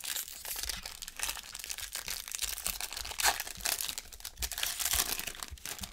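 Foil wrapper of a pack of baseball cards being torn open and crinkled in the hands, a dense crackle with the loudest rustles a little past the middle.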